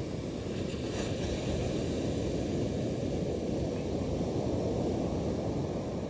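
Wind buffeting the microphone, over waves breaking and washing up a pebble beach.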